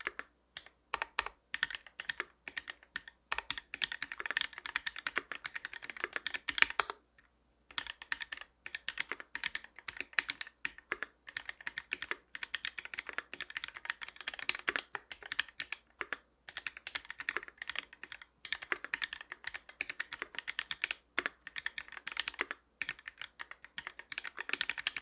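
Fast, continuous typing on a custom 660 mechanical keyboard with a brass plate, lubed Milky Gateron White linear switches on 57 g springs and GMK doubleshot keycaps: a dense run of key clicks with a short pause about seven seconds in.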